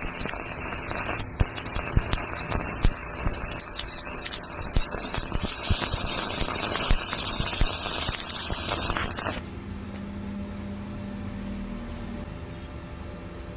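Electric arc welding: a steady crackling hiss full of sharp pops that cuts off suddenly about nine seconds in as the arc is broken. A faint low hum follows.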